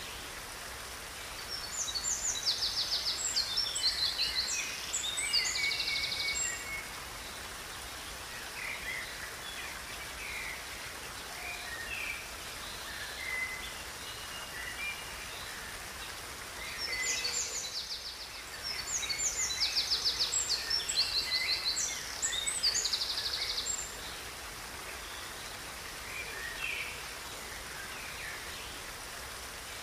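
A songbird singing a long, rapid, high-pitched song of fast trills and buzzy notes, lasting about five seconds, twice and starting a third time near the end, over a steady hiss of flowing river water; a few short bird calls fall in between.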